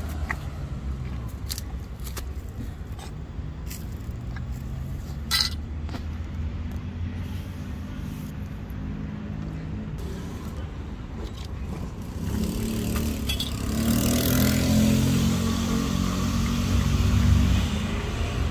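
Steady rumble of road traffic, with a motor vehicle passing louder from about two-thirds of the way in. Short scattered clicks and smacks over it, fitting cats chewing wet cat food.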